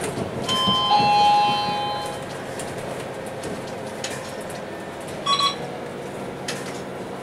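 Two-tone chime inside a moving MAN A22 city bus, a higher note then a lower one, ringing for about a second and a half: the bus's stop-request signal. About five seconds in comes a short double beep, over the steady drone of the bus in motion.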